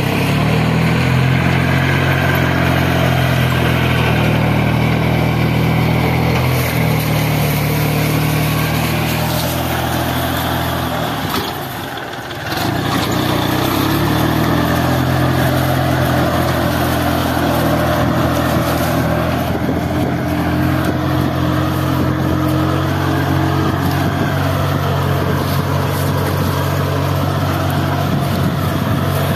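VST Mitsubishi 180D tractor's small diesel engine running steadily under load while pulling a heavily loaded trolley. The sound dips briefly about twelve seconds in, then returns at the same steady pitch.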